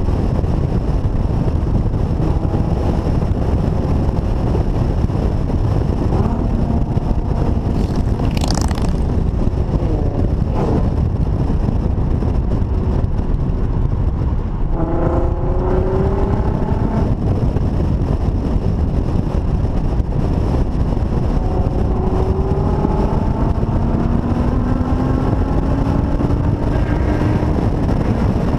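Car driving at road speed, with heavy wind noise on an outside-mounted microphone. The engine's pitch climbs as it accelerates, steeply about fifteen seconds in and more gradually near the end. There is a brief whoosh about eight seconds in.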